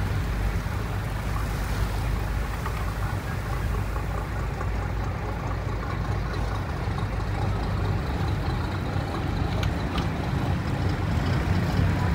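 A passenger ferry's engine running with a steady low drone, with water rushing along the hull.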